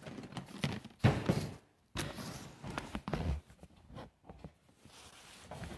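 Handling noise of a phone being moved and propped into place: a series of irregular knocks and bumps with rubbing between them, the loudest knock about a second in.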